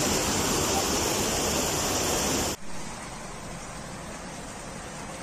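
Muddy floodwater pouring over a wall and rushing down a street: a loud steady rush. About two and a half seconds in it cuts off abruptly to a quieter steady hiss.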